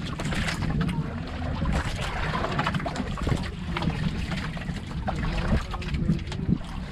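Wind on the microphone and water lapping against the hull of an outrigger boat at sea, a steady low rumble with a few light knocks.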